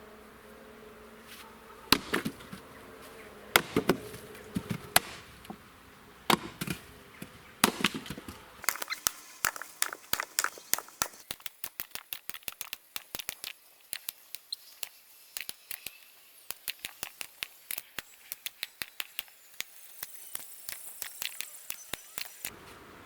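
Firewood being split: a string of sharp knocks and cracks, some with a low thud. From about nine seconds in the strikes come as a fast, dense run of thin clicks.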